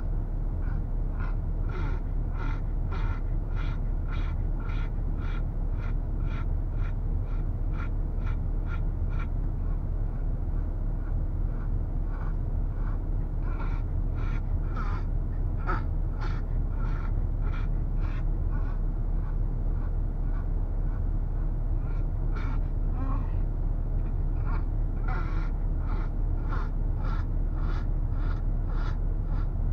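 A dog panting in quick, even breaths, about two a second, stopping for a stretch in the middle. Under it runs the steady low drone of the Toyota Land Cruiser 80 on the move, heard from inside the cabin.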